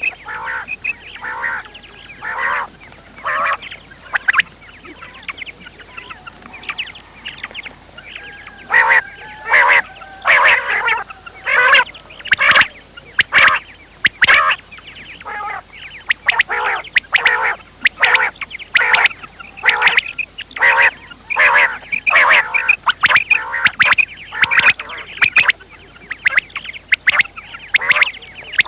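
Birds, duck-like waterfowl, calling over and over in short, loud calls, with some packed in quick runs.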